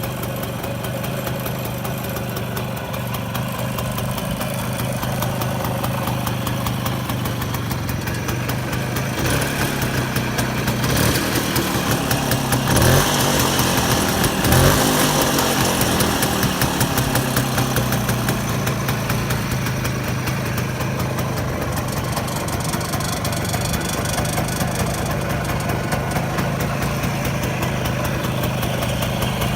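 1957 Jawa 356's 175 cc single-cylinder two-stroke twin-port engine idling steadily, with two short blips of the throttle about halfway through.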